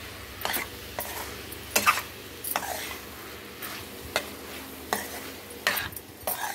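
A perforated steel spatula stirring amaranth greens and moong dal in a stainless steel pan, with sharp metal scrapes and clinks about once a second over a light sizzle of frying.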